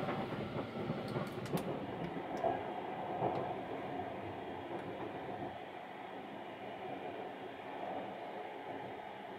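Sunrise Izumo sleeper train running, heard from inside a sleeper compartment: a steady rumble and rattle of the moving train, with a few sharp clicks in the first couple of seconds. It eases slightly past the middle.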